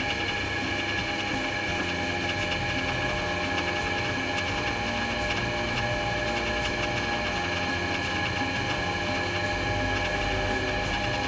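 A workshop power tool running steadily, a constant machine whine over a low rumble.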